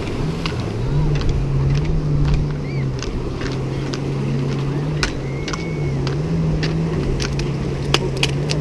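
A motorboat engine droning steadily, its pitch wavering slightly, with scattered light clicks and taps over it.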